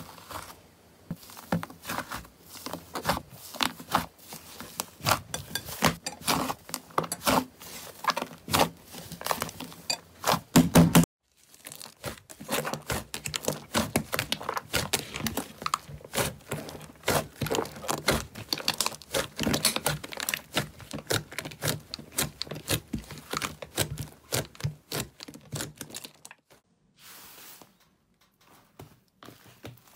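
Slime being squeezed, stretched and poked by hand: dense runs of small crackling pops and sticky clicks. The sound cuts off abruptly about eleven seconds in, starts again with a second batch, and turns much quieter near the end.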